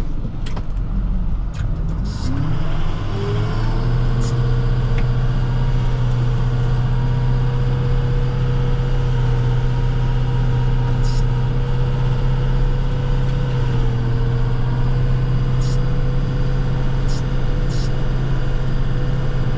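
Plow truck's engine heard from inside the cab, rising in pitch as the truck accelerates about two seconds in, then running at a steady pitch.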